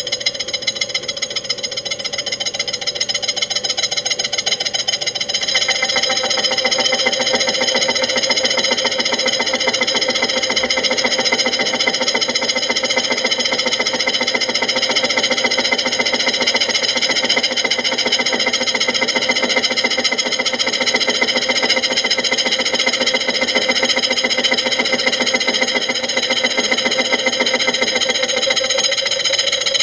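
Milling machine running a 5-inch slitting saw at 397 RPM through a light cut, a noisy, fast, even chatter of the teeth with a ringing whine, growing louder about five seconds in as the saw bites in.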